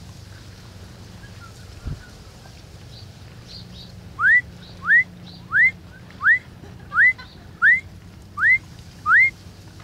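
A person whistling a run of eight short notes, each sliding upward in pitch, evenly spaced a little under a second apart and starting about four seconds in.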